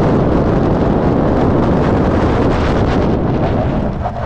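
Wind buffeting the microphone of a camera mounted on the outside of a car, heard as a loud, steady rush of noise.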